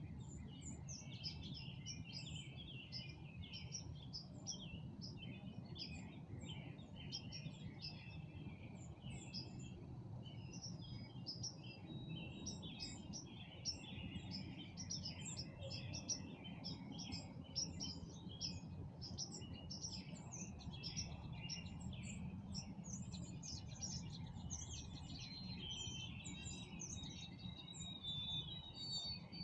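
Many songbirds chirping and calling together in a dense, overlapping evening chorus of short notes, with a few longer whistled notes near the end, over a steady low background rumble.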